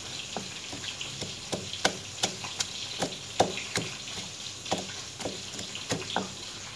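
Stone pestle pounding whole shallots, garlic and chillies in a stone mortar, a steady run of knocks about three a second.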